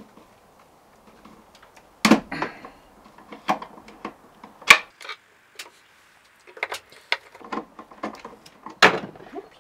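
Objects being handled and moved about while rummaging: irregular knocks, clicks and light clatter, loudest about two seconds in, nearly five seconds in and near the end.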